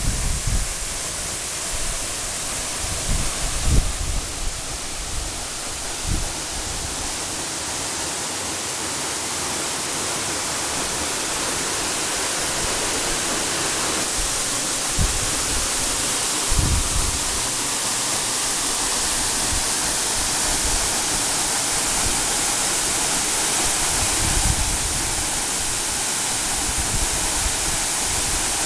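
A roughly 30-metre waterfall pouring into its plunge pool: a steady, dense rush of falling water, with a few brief low thumps here and there.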